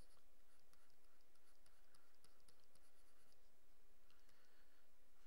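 Faint, quick scratching of a stylus pen drawing short strokes on a graphics tablet.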